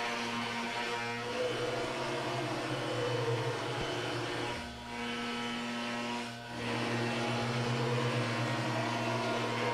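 The TorqueCNC 9060's router spindle turns a carbide-insert surfacing bit at 12,000 rpm as it skims the MDF spoilboard flat. It gives a steady hum and whine of cutting, which dips briefly twice partway through.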